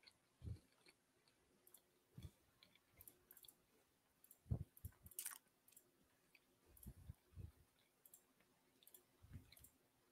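Near silence broken by faint, scattered computer-mouse clicks and a few soft low thumps, the loudest thump about four and a half seconds in.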